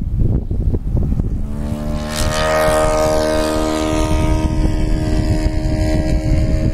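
Electric tricopter's propellers humming in flight, a steady cluster of pitched tones that comes in about a second and a half in and holds, over wind rumbling on the microphone.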